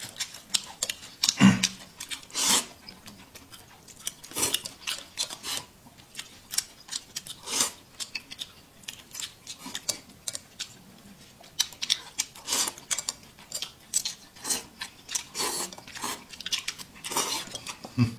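Noodles being eaten fast from a porcelain bowl with chopsticks: chopsticks clicking against the bowl, with slurping and chewing. An irregular string of short clicks and brief noisy slurps.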